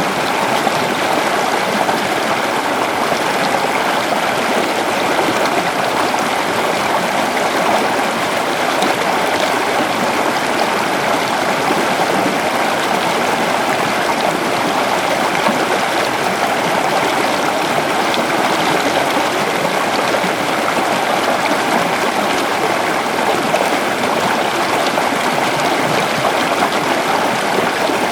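Waterfall: falling water rushing and splashing in a steady, unchanging roar-like hiss.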